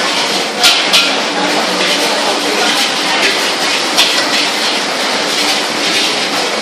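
Char koay teow noodles stir-frying in a wok over a gas burner: a steady loud hiss and sizzle. A metal spatula clangs sharply against the wok, twice close together about half a second in and again about four seconds in.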